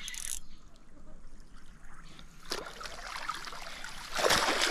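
Water splashing and dripping as a hooked zander is scooped up in a landing net at the surface, getting louder near the end.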